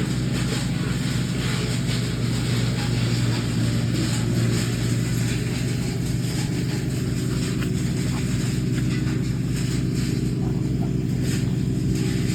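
Wood chipper engine running steadily, a constant low hum with a noisy rush above it.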